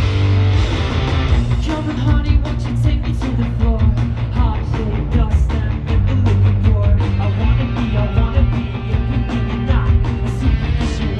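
Live rock band playing through a festival PA, heard loud from the crowd: electric guitar and heavy bass over a steady, driving drum beat.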